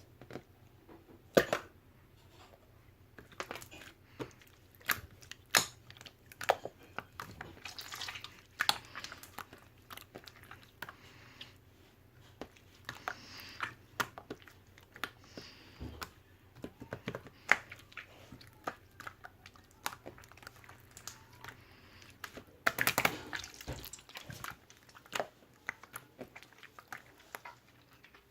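Crunchy chewing: irregular crunches and sharp clicks in a small room, with a dense burst of crunching about 23 seconds in.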